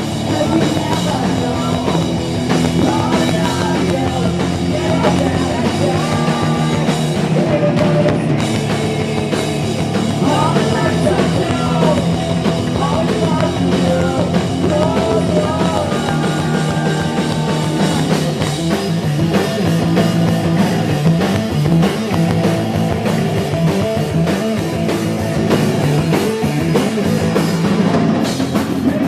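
A loud rock band playing live, punk-leaning, with a drum kit, amplified instruments and singing.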